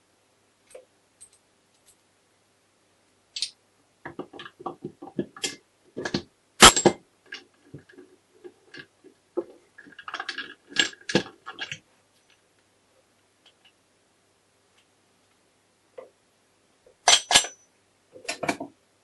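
Gears and shafts of a Honda MT5 four-speed gearbox clinking and knocking against each other and against the crankcase as they are fitted by hand: scattered metallic clicks, busiest in the middle, with one sharper knock about seven seconds in and a couple more clinks near the end.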